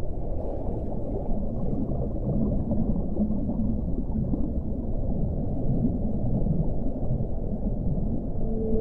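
Underwater ocean ambience: a steady, deep water noise with no distinct calls. Near the end a long, steady low tone comes in.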